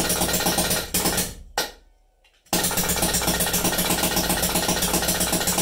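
Airstar Nova 700 mechanical paintball marker rapid-firing with no paint loaded: fast, even strings of loud sharp shots. The first string breaks off just over a second in, a lone shot follows, and after a short pause a second string starts about two and a half seconds in.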